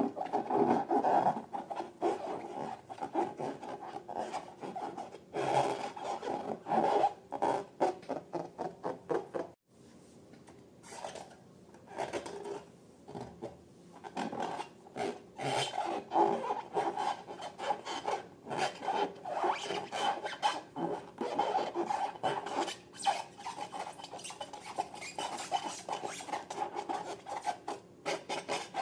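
Hands rubbing and squeezing rubber balloons and slime in a continuous run of short rubbing strokes. There is a brief gap about ten seconds in.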